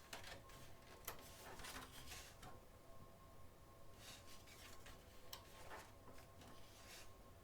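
Faint rustling and soft taps of magazine pages being handled and turned, in several short bursts.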